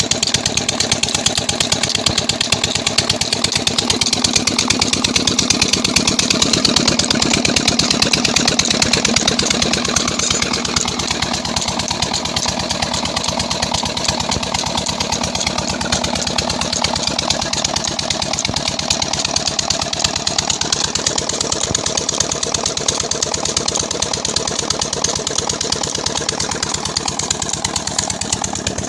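An 18 HP KAM 'Peter' diesel engine running steadily after its rebuild, a fast, even beat of firing strokes; it gets slightly quieter about ten seconds in.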